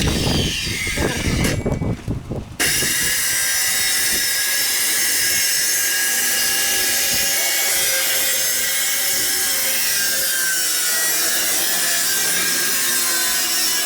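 Power saw cutting through a wooden boat floor panel, running steadily. It picks up after a brief break about two seconds in.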